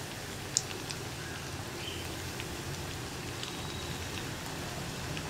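Semolina snack dough deep-frying in hot oil: a steady bubbling sizzle with scattered small pops, one sharper pop about half a second in.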